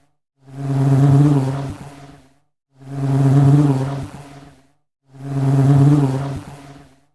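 Honey bee buzzing in three separate passes, each about two seconds long, swelling and then fading, with half-second silences between. The buzz is a steady low drone that wavers slightly in pitch.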